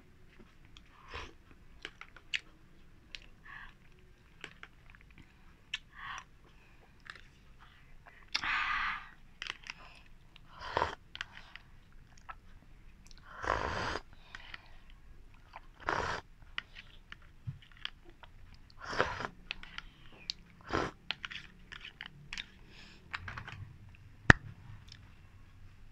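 Close-miked eating sounds: chewing, lip smacks and small mouth clicks, with a string of louder chewing bursts at irregular intervals.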